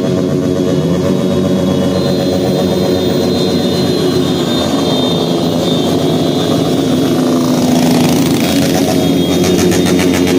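Many motorcycle engines running together as a convoy of bikes rides past, a loud steady drone that grows louder near the end as the nearest bikes pass close.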